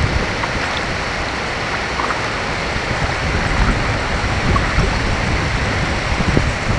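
Steady rushing noise of water around a kayak, with wind buffeting the microphone in low rumbles.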